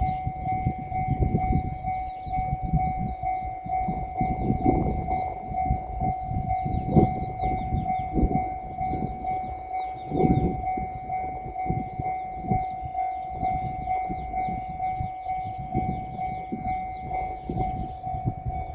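Japanese railway level-crossing alarm ringing its rapid, evenly repeating electronic bell tone. Under it, heavy low rumbling with irregular thumps, as of a train going over the crossing.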